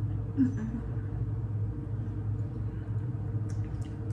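Steady low hum of room noise with no talking, a brief short vocal murmur about half a second in, and a few faint clicks near the end.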